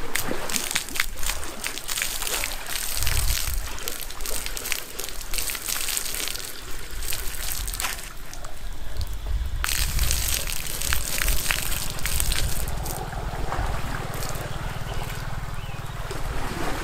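Water being poured by the basketful into a drum to prime a siphon pipe: repeated rushes of splashing and sloshing, with knocks from handling the container and a low rumble underneath.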